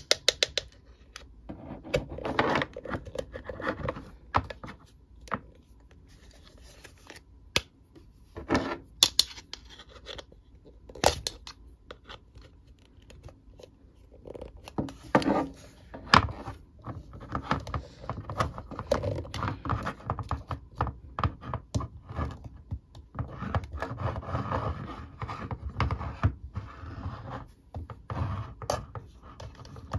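Hard plastic Mr. Potato Head pieces being handled and pushed into the toy's hollow plastic body: irregular clicks, taps and scrapes of plastic on plastic, with louder snaps now and then.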